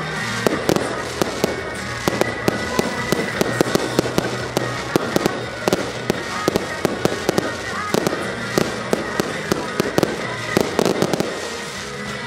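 Aerial fireworks going off in rapid succession, many sharp bangs and crackling pops a second, over a music soundtrack playing underneath.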